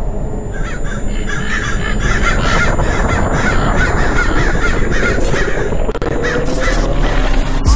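Crows cawing over and over over a steady background hiss, with a low tone rising slowly through the second half.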